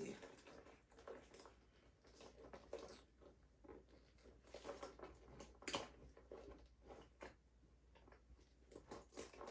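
Faint, scattered rustling and light clicks of a small handbag and the items in it being handled as a lotion bottle is tried inside, with one sharper click a little past halfway.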